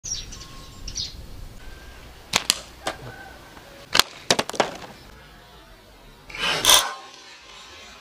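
A string of sharp cracks and snaps from slingshot shooting, the sharpest one about four seconds in as a plastic bottle is hit off a wooden stump. A few bird chirps come in the first second, and a short rushing burst of noise near the end.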